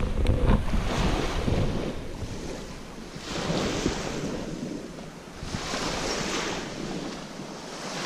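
Small waves washing onto a sandy beach, swelling and falling back every two to three seconds. Wind buffets the microphone with a low rumble in the first couple of seconds.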